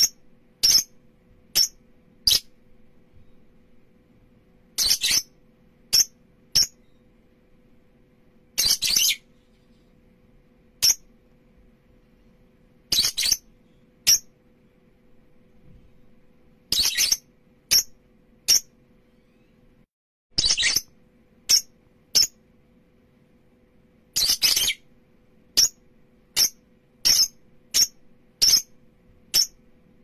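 Lovebirds (Agapornis) calling in sharp, high-pitched chirps. Single chirps come every second or so, with a longer, louder chattering burst about every four seconds. A faint steady hum lies underneath.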